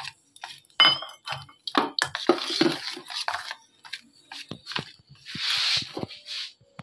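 Steel spoon clinking and scraping against a steel bowl while stirring thick batter for banana fritters: a run of sharp clinks, one ringing briefly about a second in, with stretches of scraping.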